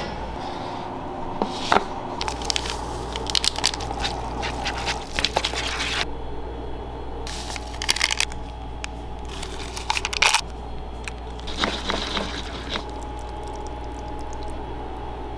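Handling sounds of instant-noodle preparation: rustling and scraping of a paper bowl and seasoning sachets, with sharp clicks here and there, over a steady low hum.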